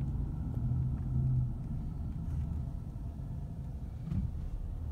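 Car driving slowly, its engine and road noise a steady low rumble heard from inside the cabin.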